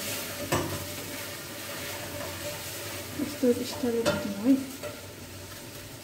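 A small knife scraping and crunching as it pares the hard green rind off a melon, a steady crisp rasp with a sharp click about half a second in and another around four seconds. A person's voice sounds briefly at about three to four and a half seconds.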